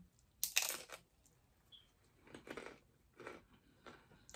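A crisp bite into a fried mini taco, the loudest crunch about half a second in, followed by a few quieter bouts of crunchy chewing.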